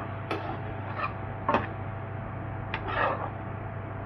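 A spoon clinking and scraping against a cooking pan while kidney beans in a spiced sauce are stirred: a few separate sharp clinks and a short scrape about three seconds in, over a steady low hum.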